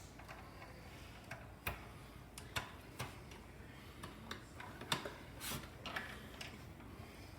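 Faint, irregular clicks and taps, about ten in all and unevenly spaced, from a ceiling light fixture being handled and fitted, with one short rustle about five and a half seconds in.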